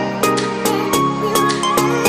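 Background music: an upbeat track with a regular beat and plucked, guitar-like notes.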